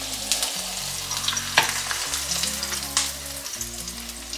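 Eggs topped with parmesan frying in butter in a frying pan, a steady sizzle, with a wooden spatula scraping and knocking against the pan a few times. The sizzle fades near the end as the pan is lifted off the heat.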